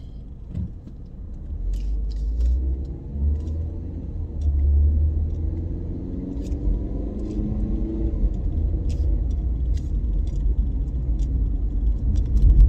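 Car driving, heard from inside the cabin: a steady low road and engine rumble, with an engine hum that shifts in pitch over the middle few seconds as the car gathers speed.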